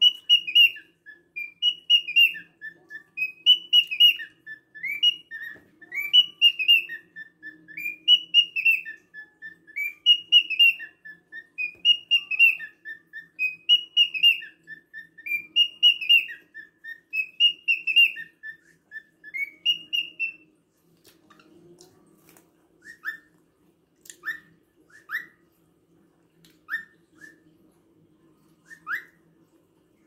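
Cockatiel whistling a short tune over and over, about one phrase every two seconds, each phrase stepping between higher and lower notes. After about twenty seconds it breaks off into a few single short rising whistles. A faint steady low hum runs underneath.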